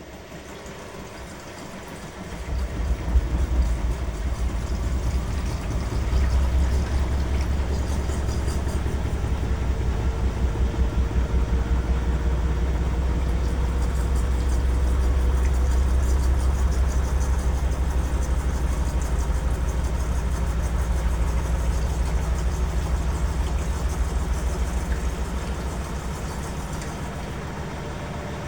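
Beko washing machine's drum motor starts about two seconds in and runs the drum with a loud low rumble and a faint, slowly rising motor whine, easing off a little near the end.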